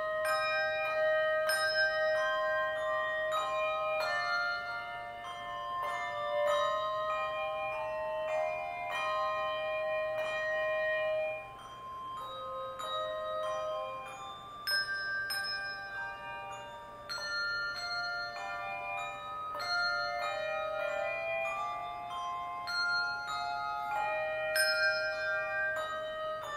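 A handbell choir playing a piece of music: many pitched bell notes struck and left to ring, overlapping one another. The ringing drops to a softer passage briefly about twelve seconds in.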